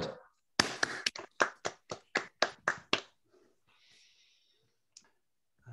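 Hand clapping, about ten quick, even claps over roughly two and a half seconds, from a single pair of hands.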